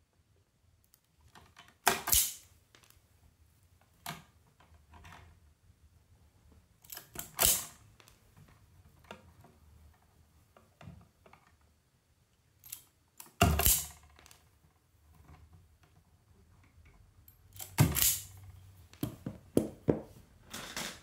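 Wire strippers clamping and pulling the insulation off 14-gauge copper house wire: sharp snaps and clicks, alone or in close pairs a few seconds apart, with quieter rustling as the stiff wires are handled between them.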